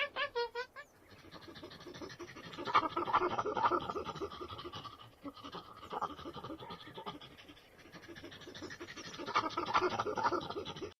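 Monkeys calling: a few wavering, high calls at the very start, then a long run of rapid chattering calls that grows louder about three seconds in and again near the end.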